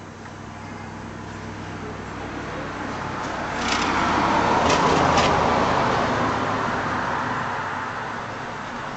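A road vehicle passing by: tyre and engine noise swells over a few seconds, peaks mid-way and fades away, with a few sharp clicks near the loudest point.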